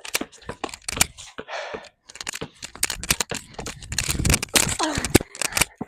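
Dense crackling rustles and knocks from a shirt-clipped lavalier microphone rubbing against clothing as its wearer moves.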